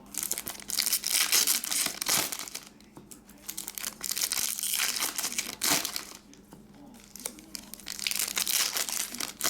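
Card pack wrappers being torn open and crinkled by hand, in three stretches of crackling with short pauses between.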